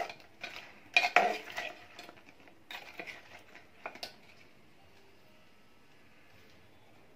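Metal spoon clinking and scraping against a stainless steel bowl while lifting syrup-coated kaimati (fried dough balls). There are several sharp clinks in the first four seconds, the loudest about a second in.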